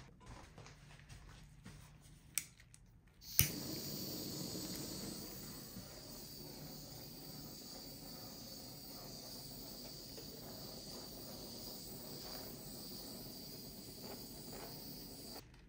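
A handheld gas torch clicks on about three seconds in and then burns with a steady hiss as its flame is passed over freshly poured clear epoxy; the hiss cuts off suddenly near the end.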